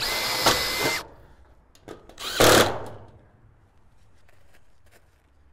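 Makita 18V cordless drill running for about a second, a steady whine as the bit bores through the thin steel flashing and shed gable. A shorter, louder rushing burst of noise follows about two and a half seconds in.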